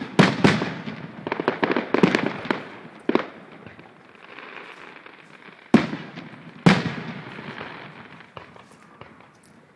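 Aerial fireworks shells bursting: a quick run of bangs and pops in the first three seconds, then two loud booms about six and seven seconds in, each echoing away.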